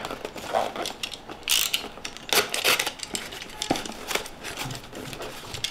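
A plastic-wrapped cardboard box being handled and opened: irregular rustles, scrapes and clicks.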